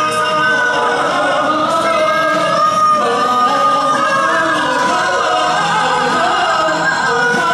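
Group of musical-theatre singers holding long notes in harmony over musical accompaniment, in the closing bars of a pop anthem.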